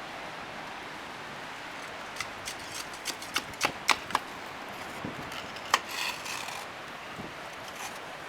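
A quick run of sharp knocks and clicks over a steady hiss, starting about two seconds in and ending a couple of seconds before the end.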